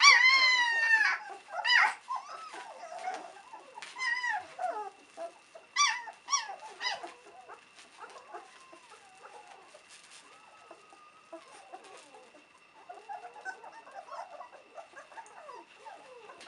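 Three-week-old White Swiss Shepherd puppies crying with high, arching yelps: hungry pups calling for their mother to feed them. The cries are loudest in the first couple of seconds and again around four and six seconds in. They then fade into faint squeaks and grunts as the litter latches on to nurse.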